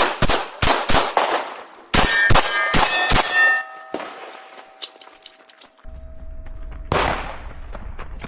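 Pistol shots fired in quick strings at steel targets, the hits clanging. After a fast run of shots about two seconds in, the struck steel plates ring on with clear bell-like tones that fade over a few seconds. One more shot and hit comes near the end.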